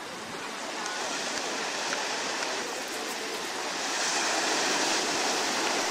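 Small sea waves breaking and washing at the shoreline, with swimmers splashing through the shallows; the wash gets louder about four seconds in.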